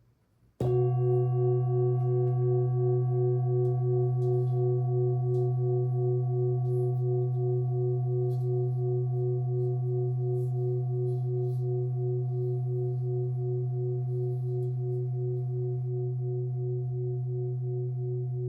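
Large handmade Nepalese singing bowl, about 25 cm across, struck once about half a second in and then ringing on. It holds a deep hum with several higher overtones that pulse about three times a second and fade slowly.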